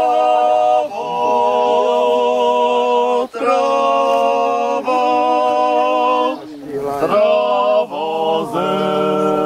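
Group of voices singing a Czech folk song unaccompanied, in long held notes with short breaks between phrases.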